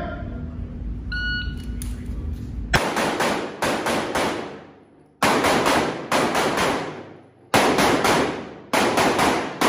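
A shot timer gives one short electronic beep about a second in. About two seconds later a handgun starts firing in four quick strings of shots with short pauses between them, each shot ringing off the walls of an indoor range.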